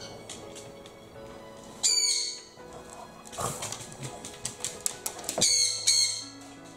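Sun conure screeching twice, loud harsh high calls about two seconds in and again near the end, with scattered clicks between them over light background music.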